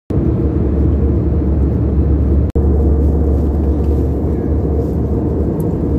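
Airliner cabin noise in flight: a steady, loud, low rumble of engine and airflow drone, broken for an instant about two and a half seconds in.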